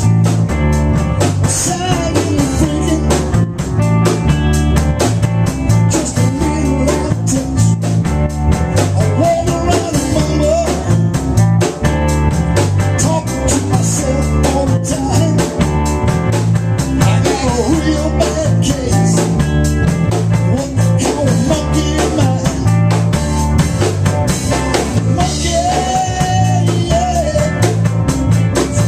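Blues band playing live: drum kit keeping a steady beat under a moving bass line, with guitar.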